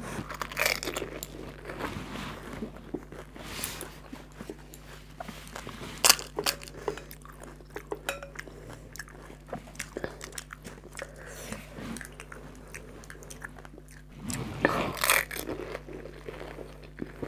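Crisp fuchka (pani puri) shells crunching and being chewed, with sharp crackles of the thin fried shells breaking. The loudest crack comes about six seconds in, and a dense burst of crunching comes near the end.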